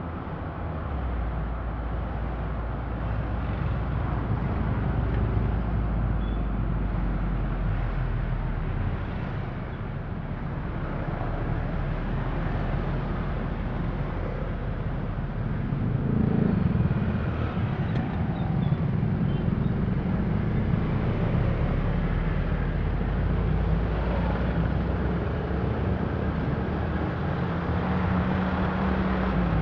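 Steady road and traffic noise from driving among motorcycles and cars: a constant low rumble of engines and tyres, with an engine swelling and rising in pitch about halfway through.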